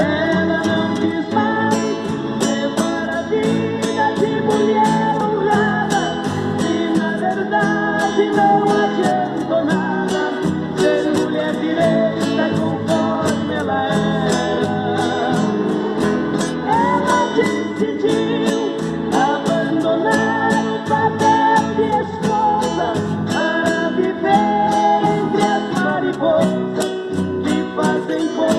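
Guitar music in E minor playing an instrumental break between sung verses: a melody line with bending notes over a steady ticking beat.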